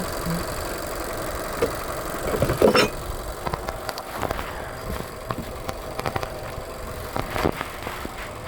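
A car engine idling steadily, with scattered clicks and knocks over it, the loudest a clank about two and a half seconds in.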